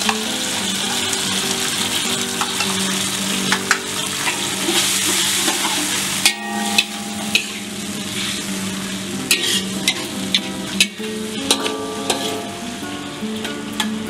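A metal spatula scrapes and taps around an aluminium wok as a stir-fry of beans, chillies and petai sizzles in a shallow sauce of water and palm sugar. The sizzling hiss is strongest in the first half and eases after about six seconds, while sharp spatula strokes come every second or so.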